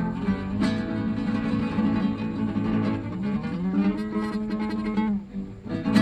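Solo fingerstyle acoustic guitar playing ringing chords. About three seconds in, the notes slide upward in pitch into a held chord that dies away just after five seconds, then a loud chord is struck near the end.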